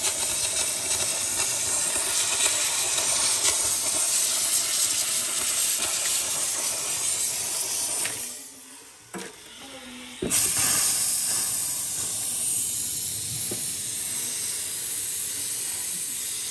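A steady hiss from a defrosting tool working on thick freezer ice. It cuts out about eight seconds in and starts again about two seconds later.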